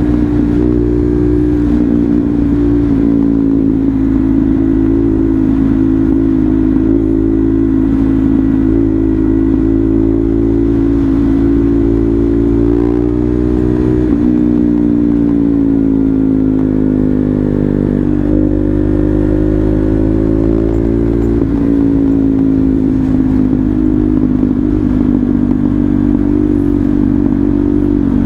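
KTM Duke 390's single-cylinder engine running under way, its pitch rising and falling with the throttle. The pitch shifts abruptly about halfway through and twice more a few seconds later.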